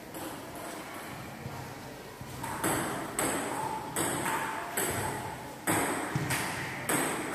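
Table tennis rally: a celluloid ping-pong ball striking bats and the tabletop. It starts about two and a half seconds in as a run of about seven sharp, pinging knocks, roughly one every two-thirds of a second.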